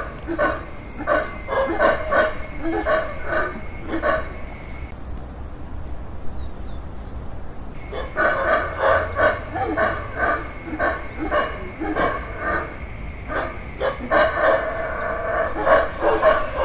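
A chorus of loud, repeated short barking or clucking animal calls, coming in quick runs of several calls a second. The calls stop for about three seconds a few seconds in, then resume. A steady high tone and intermittent high buzzing sit underneath.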